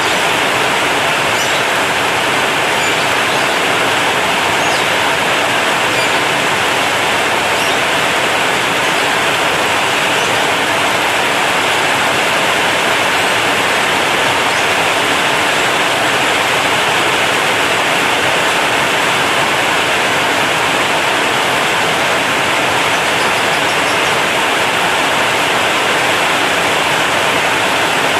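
Heavy rain drumming on a corrugated zinc roof: a loud, steady, dense hiss that keeps an even level throughout.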